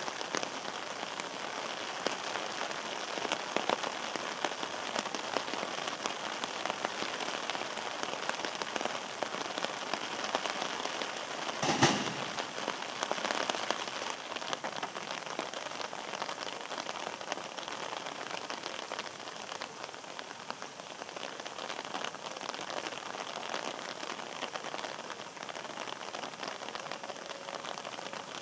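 Steady rain falling on wet concrete, with a single sharp knock a little before halfway through.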